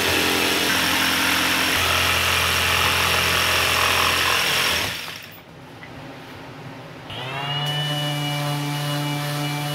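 Jigsaw cutting through thick laminated plywood, running loudly for about five seconds, then stopping. About seven seconds in, a cordless random orbital sander starts up with a short rising whine that settles into a steady hum as it sands the plywood.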